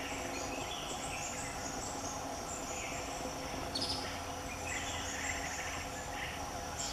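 Forest ambience: birds chirping and calling over a steady insect hum.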